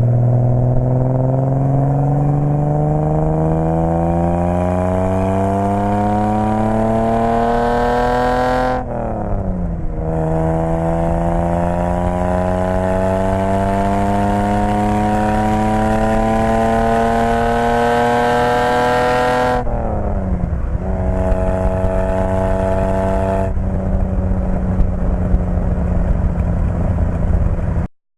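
Datsun 280Z's L28 straight-six running through a ZStory header, exhaust line and JDM muffler, with the EGR removed. The exhaust note rises steadily under acceleration twice, falling sharply about 9 and 20 seconds in as if on upshifts, then holds an even note as it cruises.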